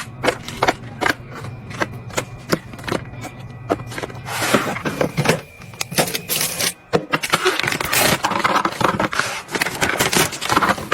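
Items being handled during restocking or organizing: a run of sharp clicks and taps as things are set down, then from about four seconds in a denser stretch of rustling and scraping.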